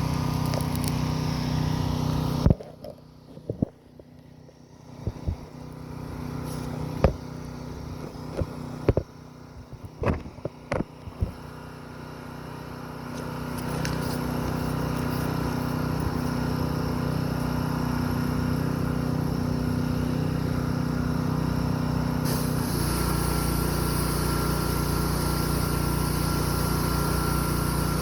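Pressure washer's engine running steadily. It drops away for several seconds with a few sharp knocks and clicks, then builds back up to a steady run. Near the end the sound turns deeper with a hiss over it.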